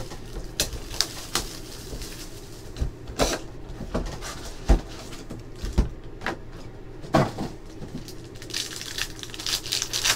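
Handling a 2017 Panini Certified football card box: cardboard knocks and thuds as the box is opened and the stack of foil packs is lifted out and set down. Near the end, a foil pack wrapper crinkles as it is torn open.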